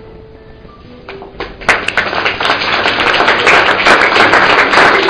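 Soft background music of single plucked notes, then audience applause starting about a second and a half in, quickly building and going on.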